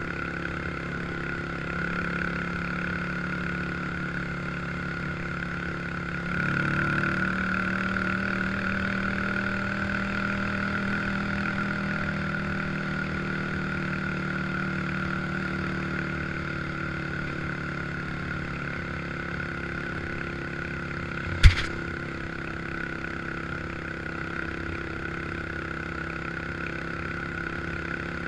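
1986 Honda FourTrax 350 ATV's single-cylinder four-stroke engine running steadily under way, its pitch rising as it speeds up about six seconds in. One sharp knock comes about three-quarters of the way through.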